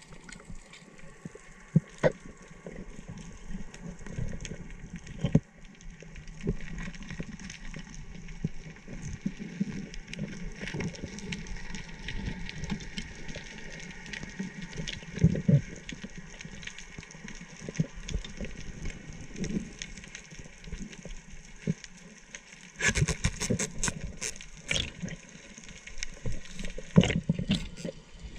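Underwater sound through a diving camera: muffled water noise with scattered sharp clicks and crackles. About two-thirds of the way through comes a dense, louder run of crackling clicks and bubbling that lasts a few seconds.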